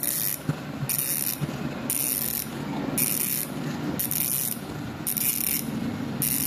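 Hassns Pro 7 freehub ratcheting loudly in short bursts about once a second, the pawl buzz of the hub being sound-checked.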